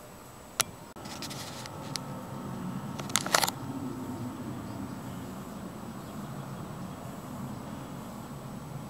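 Handheld camera handling noise: a sharp click about half a second in, a short rustle, then a cluster of clicks around three seconds in, over a low steady rumble that sets in after about a second.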